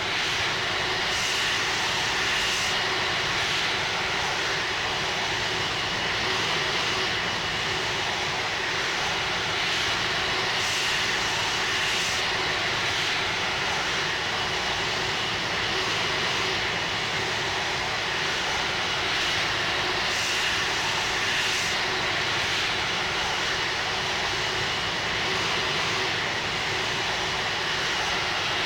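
Airbus A330-300 jet engines running at a steady, unchanging level: an even rushing noise with a steady high whine over a lower hum.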